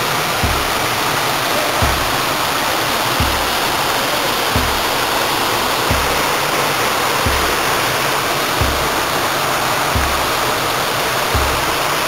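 Steady rushing of a waterfall plunging down a rock face into a shallow pool. A soft, low thump recurs at an even pace, about every second and a half.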